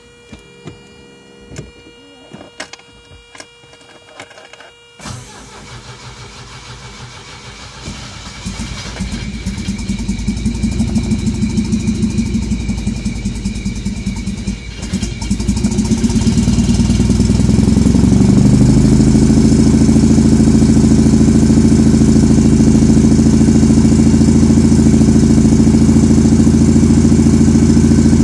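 1984 Saab 900 turbo's eight-valve 2.0-litre four-cylinder engine making a hard start. After a few light clicks, the starter cranks it for about a dozen seconds before it catches and settles into a steady run.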